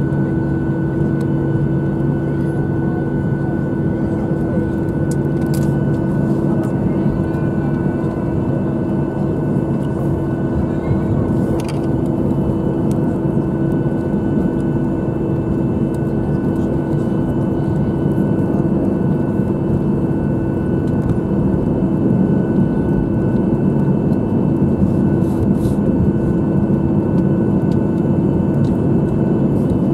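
Boeing 737-900 cabin noise while taxiing: the CFM56-7B jet engines at taxi power, heard inside over the wing as a steady drone with several fixed hums and a thin whine. The sound swells slightly near the end.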